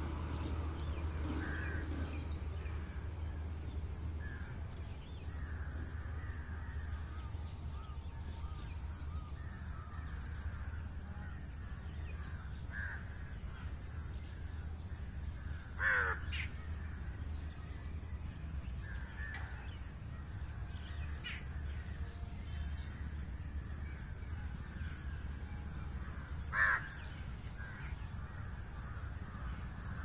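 Outdoor ambience: insects chirping in a fast, even pulse, with scattered bird calls and two louder short calls, one about halfway through and one near the end.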